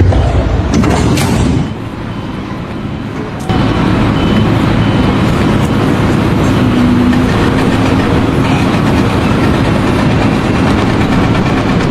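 A vehicle or machine running with a loud, steady rumble. The sound changes abruptly twice in the first few seconds.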